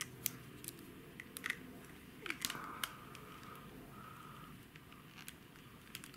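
Small precision screwdriver and fingers working on the plastic frame of camera glasses, giving scattered faint clicks and ticks as a tiny screw is turned out.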